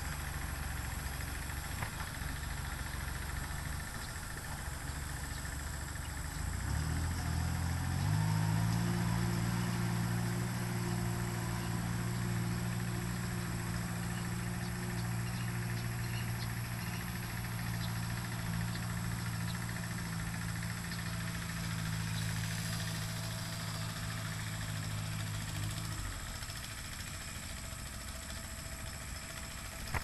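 Engine running steadily at a low, even hum; it grows louder and steadier about seven seconds in and drops away about four seconds before the end.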